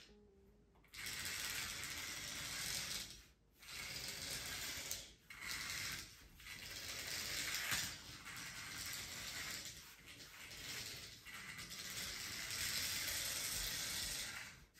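A small motorised toy kart running across a hard floor, its little motor and gears whirring and its plastic wheels rattling. It moves only forwards and backwards, in several runs with brief stops between them.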